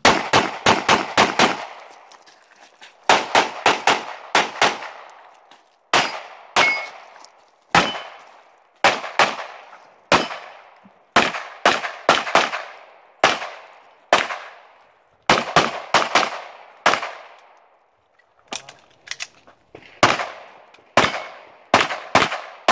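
Rapid fire from a 9mm STI DVC Open pistol: shots in fast pairs and strings of up to about six, separated by breaks of roughly a second. Each shot has a short echoing tail.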